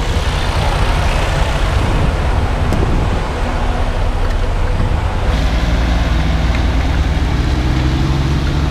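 Diesel semi-truck engine idling, a steady low rumble with a hiss over it. About five seconds in, the hum deepens and steadies.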